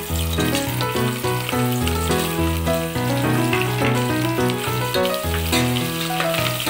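Chopped onions and green chillies sizzling in hot oil in a pressure cooker, under background music with changing notes that is as loud as the frying.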